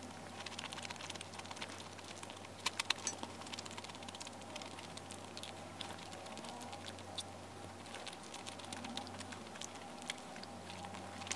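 Eating sounds at the table: wooden chopsticks tapping and picking food off plates and bites being chewed, heard as a scatter of small clicks with a louder cluster about three seconds in.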